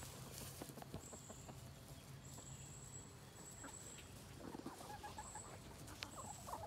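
Backyard chickens clucking softly, a few clucks coming closer together in the second half. A faint high thin tone sounds off and on throughout.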